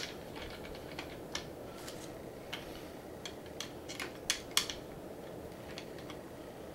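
Scattered small clicks and light metallic ticks, about a dozen at irregular intervals, from hands working the handlebar and its fittings on a wooden balance bike during assembly, over a steady low hum.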